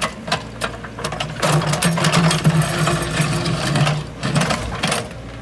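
Mini excavator working: its engine running under load with a steady drone, mixed with irregular clanks and rattling, loudest in the middle stretch.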